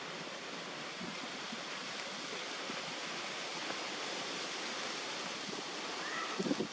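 Steady, even hiss of outdoor background noise. Near the end a faint short call sounds and a crackling rustle starts.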